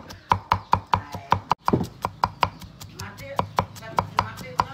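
Cleaver chopping garlic cloves on a round wooden chopping block, in rapid, even knocks of about five a second.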